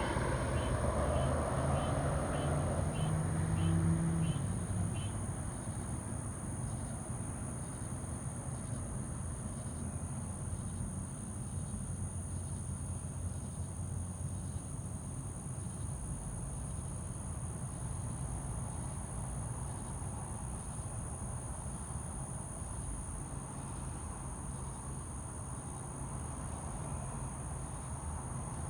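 Distant jet engine noise from a Boeing 737-900ER's CFM56 turbofans after landing, fading away over the first five seconds into a steady low background rumble. A steady high chorus of night insects runs throughout.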